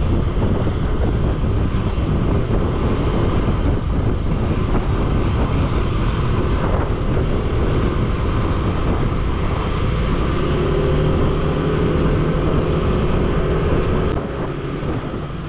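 Wind rushing over the microphone together with the running engine of a Yamaha NMAX 155 scooter ridden at a steady cruising speed. The noise drops somewhat about a second before the end.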